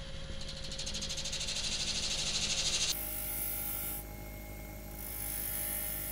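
Wood lathe spinning a figured maple blank while a 3/4-inch skew chisel cuts detail rings into it. The cut hisses louder for about three seconds, then breaks off suddenly. After that the lathe keeps running with a steady hum and lighter hissing passes of the tool.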